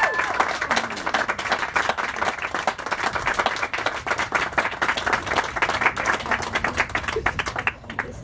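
A small audience applauding: steady, dense hand-clapping that thins out and stops near the end, with a short cheer at the very start.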